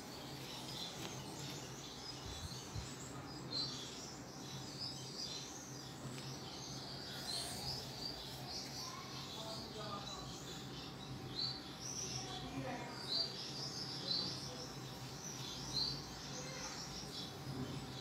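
Small finches chirping: a steady scatter of short, high chirps, a few of them louder, over a faint low hum.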